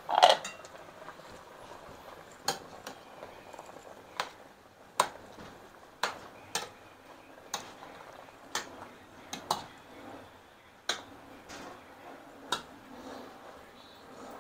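Metal spoon clinking against the sides of a stainless steel pot while stirring a simmering stew: sharp, irregular clinks about once a second, after a louder clatter right at the start.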